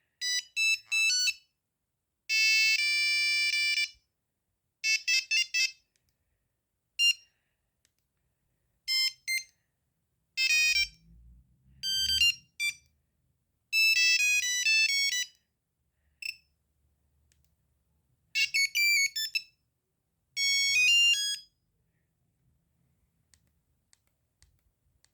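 Nokia 3310 monophonic ringtones beeping in a string of short melodic snippets, each lasting under a second to about two seconds, with brief pauses between them. The beeping stops a few seconds before the end, leaving only faint clicks.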